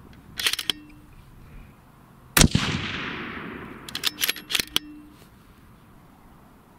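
A single shot from a 6.5 Creedmoor bolt-action rifle fitted with a muzzle brake, about two and a half seconds in, its report fading out over a couple of seconds. Short metallic clicks of the bolt being worked come shortly before it and again about a second and a half after it.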